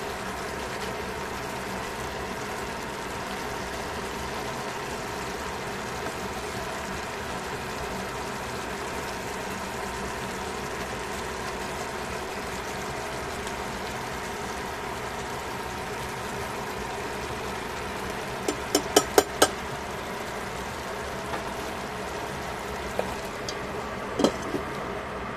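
Steady hum throughout, with a quick run of about five sharp metal clacks about three-quarters through: tongs knocked against the rim of a stainless steel pot. Near the end comes a clink as a lid is set on the pot.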